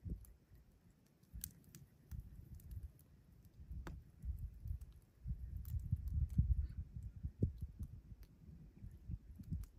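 Wind buffeting the microphone in irregular low gusts, strongest around the middle, with a few sharp, sparse crackles from the wood campfire under the Dutch oven.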